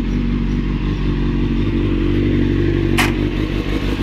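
2000 Suzuki GSX-R 750's inline-four engine idling steadily, its note rising slightly for a moment about two seconds in. A single sharp click about three seconds in.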